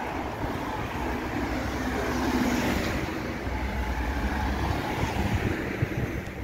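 Street traffic: a car drives past on the road alongside, with a rumble of wind on the microphone.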